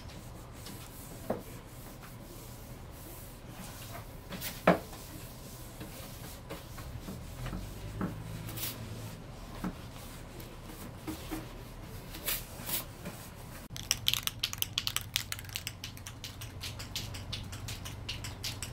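A hand spray bottle squirting and a rag rubbing over the sanded, painted wooden cabinet, with scattered knocks on the wood and one sharp knock about five seconds in. From about fourteen seconds on there is a quick run of sharp ticks.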